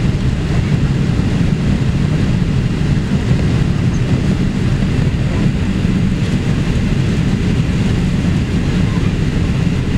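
Steady cabin drone of a Boeing 787-8 in flight, engine and airflow noise heard from a window seat inside the passenger cabin. A deep, even rumble that does not rise or fall.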